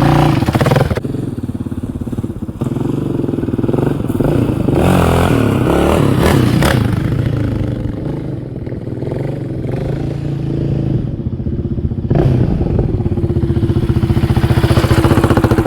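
2019 Yamaha Raptor 700R's single-cylinder four-stroke engine running with the exhaust baffle removed. The revs rise and fall, climbing about four to seven seconds in and again from about twelve seconds.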